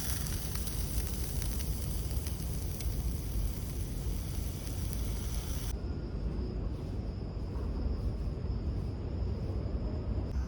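Food sizzling in a pan, cut off abruptly a little past halfway, leaving a steady low rumble.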